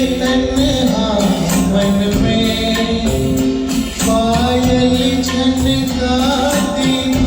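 A man singing a Hindi ghazal-style song with instrumental accompaniment, held notes over a steady beat.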